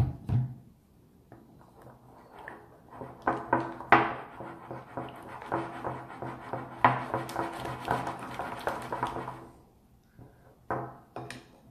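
Thickening slime being stirred with a spatula in a glass bowl: irregular wet squelches, slaps and scrapes as the borax activator mixes in and the slime firms up, with a knock against the bowl at the start.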